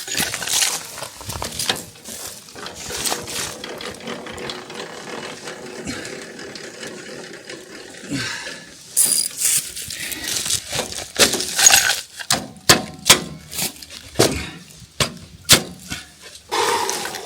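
A run of sharp clinks and knocks, sparse at first and coming thick and fast in the second half, as supports and parts are handled and set while the sawmill track is levelled.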